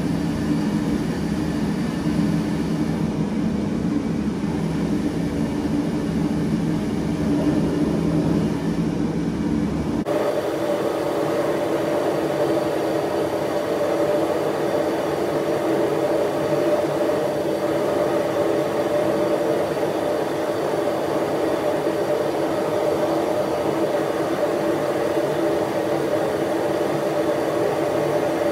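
Ribbon-burner gas forge running, freshly lit, with its combustion-air blower fan: a steady rush of burning gas and fan whir. About ten seconds in, the sound changes abruptly, as the low rumble drops out and a steadier, higher hum takes over.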